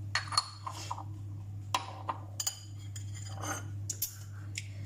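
Kitchen utensils clinking and tapping against a mixing bowl, about half a dozen irregular knocks, over a steady low hum.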